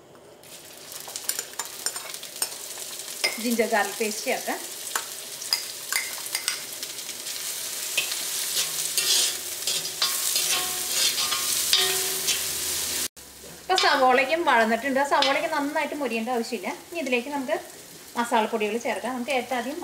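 Chopped red onions hitting hot oil in a cast-iron wok and frying, a steady sizzle that starts about half a second in. A metal spoon scrapes repeatedly against the pan as the onions are stirred, most strongly in the second half.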